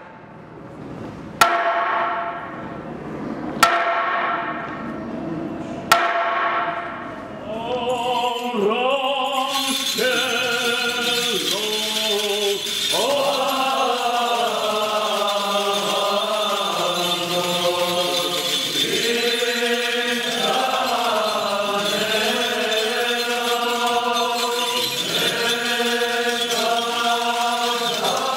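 Three slow strikes on a hanging wooden semantron, each ringing out, about two seconds apart. From about eight seconds in, a group of male clergy sing Armenian liturgical chant together.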